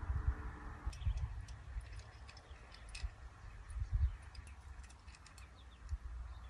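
Wind rumbling and buffeting on the microphone, with scattered faint high bird chirps. A faint steady hum stops about a second in.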